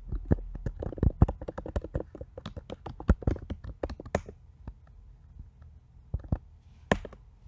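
Typing on a computer keyboard: a quick run of keystrokes for about four seconds, then a few separate clicks near the end.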